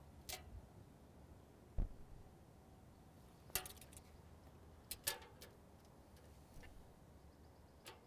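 Quiet handling noises of a steel tape measure and pencil against a thin metal bumper: a few scattered sharp clicks and light rattles, with one dull thump about two seconds in.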